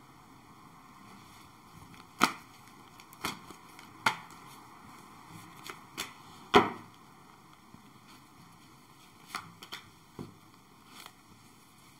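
Tarot cards being handled and laid down: a scattered series of sharp taps and slaps, the loudest about six and a half seconds in, with a quick cluster near the end.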